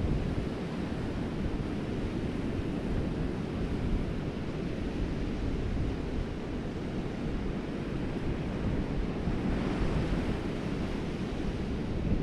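Surf breaking on a sandy beach, with wind buffeting the microphone in a steady low rumble. The surf swells a little louder about ten seconds in.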